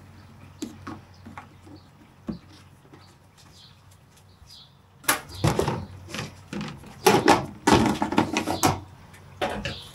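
Handling noise from a single-burner camping gas stove and its plastic carrying case: light clicks for the first few seconds, then louder scraping and knocking from about five seconds in.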